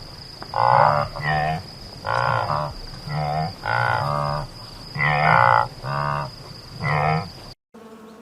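Scimitar oryx calling: a run of about a dozen short, low, lowing calls, mostly in pairs, that cuts off abruptly near the end.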